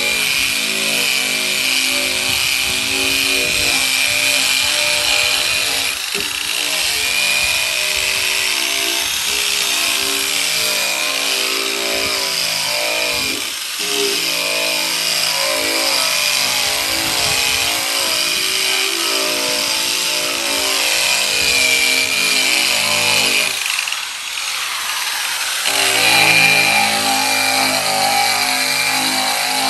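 Handheld electric drum sander grinding down the weld seam and surface of a steel quarter panel, its motor running steadily under load. The sound dips briefly a few times, longest about three-quarters of the way through.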